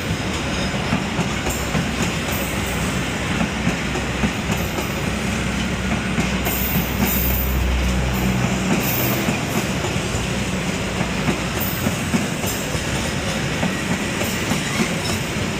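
A train running past on the rails: a steady rumble of wheels on track with a repeated clickety-clack of wheels over rail joints, the low rumble heaviest about halfway through.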